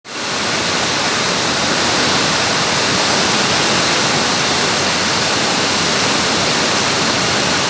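Heavy rain falling in a steady, dense hiss that fades in at the start and then holds even.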